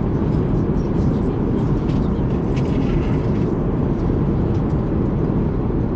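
Steady cabin noise of an Airbus A380 in flight: an even, low rush of engines and airflow that holds constant, with a few faint light clicks over it.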